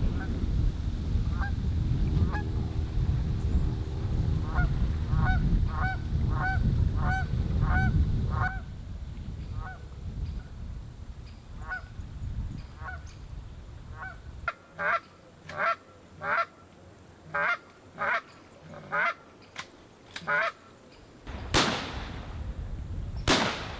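A flock of geese honking in many short, repeated calls, over a low rumble for the first third. Near the end, two loud shotgun blasts go off about two seconds apart.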